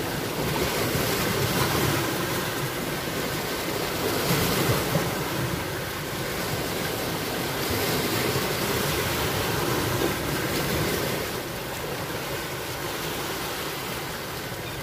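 Sea surf washing in and out, swelling louder and fading over a few seconds at a time, with wind buffeting the microphone.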